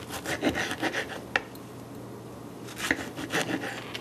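Kitchen knife slicing a tomato into wedges on a wooden cutting board: short cutting strokes and knocks of the blade on the board, in two bursts with a pause between, each with one sharper click.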